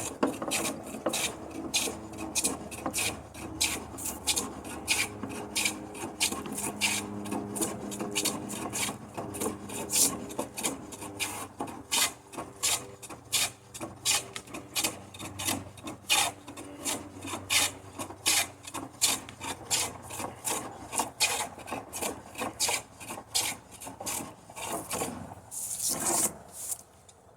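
Hand plane shaving a hickory slab in quick, repeated strokes, about two a second, as the high spot in the middle is planed down. The strokes stop shortly before the end.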